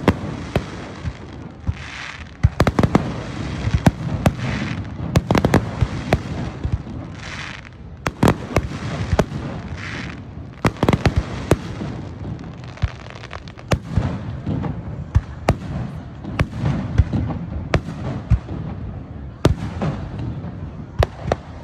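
Aerial fireworks display: a rapid, irregular string of shell bursts and sharp pops, with short hissing crackles every few seconds in the first half.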